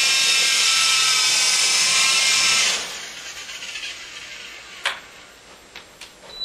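Small electric RC helicopter's motor and rotor whining at a high steady pitch, then cut about three seconds in and winding down after landing, followed by a sharp click and a few light knocks.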